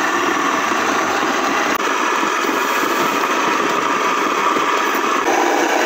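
Small household electric stone flour mill (chakki) in a wooden cabinet running and grinding grain into flour, with a loud, steady grinding noise. Its tone shifts slightly about five seconds in.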